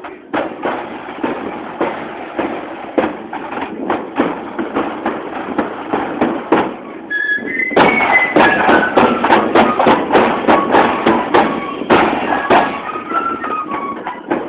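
Marching flute band: drums beat a steady marching time of about two beats a second, then a little past halfway the flutes strike up a tune over louder, busier drumming.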